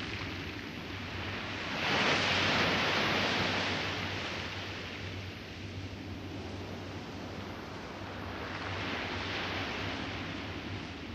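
Surf washing on a sandy beach, with wind on the microphone making a low steady rumble. A wave swells up loudly about two seconds in and another comes in more softly near the end.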